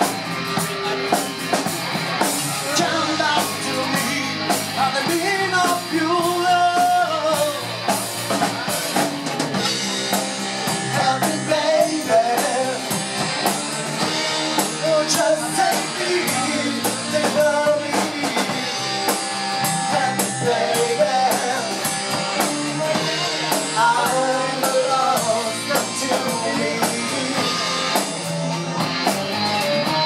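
A rock band playing live: electric guitars and a drum kit with a man singing lead.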